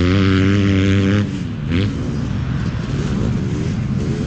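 Piranha P190 pit bike's single-cylinder four-stroke engine held at steady high revs. About a second in the throttle is shut, and the engine drops back to lower, uneven revs.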